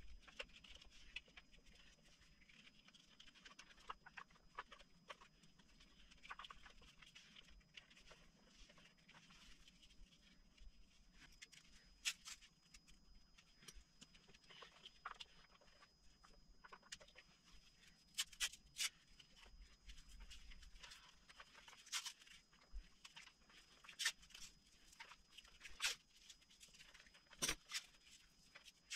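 Quiet handling of a motorcycle wiring harness: wires rustling and small sharp clicks and ticks as hands sort the loom and begin wrapping it with cloth loom tape. The clicks come more often in the second half.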